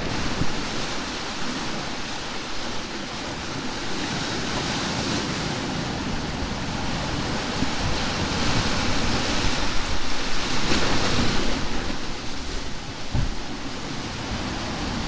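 Rushing, churning wake and breaking waves behind the stern of a Leopard 45 sailing catamaran under way in open ocean, with wind buffeting the microphone. The rush grows louder for a few seconds a little past halfway.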